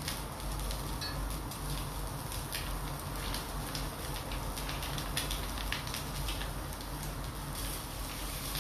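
Chicken skewers sizzling and crackling on a small tabletop grill: a steady hiss with many quick pops and spits, over a steady low hum.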